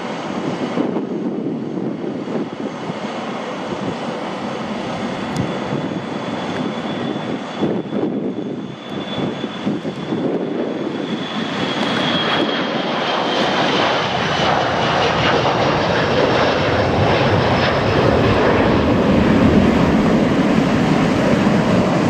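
Boeing 737-300's CFM56-3 turbofan engines at takeoff power. A loud jet rumble builds as the airliner accelerates down the runway and lifts off. Around halfway through, a high fan whine slides down in pitch.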